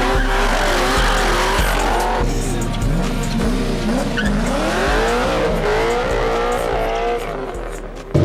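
Car engine revving up and down again and again, with tires squealing, over rap music.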